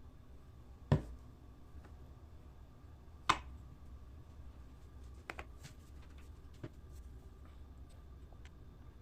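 Two sharp knocks about two seconds apart, then a few fainter clicks, over a low steady hum.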